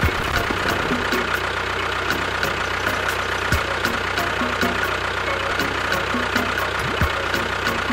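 Tractor engine running steadily at idle, with a regular light ticking over its hum.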